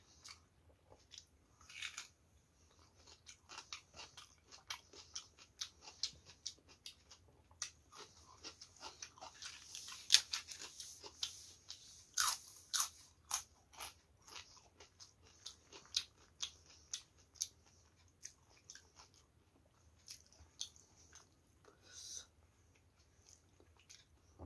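A person chewing and biting crunchy food with rice: a run of sharp crunches and wet mouth sounds, densest and loudest from about eight to fourteen seconds in.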